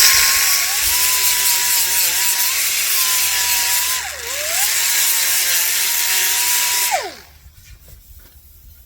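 Angle grinder cutting sheet metal: a steady high whine with a hiss of cutting. It bogs down briefly near the middle as it is pressed into the cut, then recovers, and winds down with a falling pitch a couple of seconds before the end. Faint metal clatter follows.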